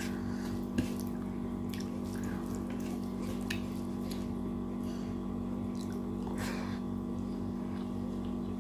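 Wet, smacking chewing sounds and small mouth clicks of someone eating rajma curry with rice and curd, over a steady low hum.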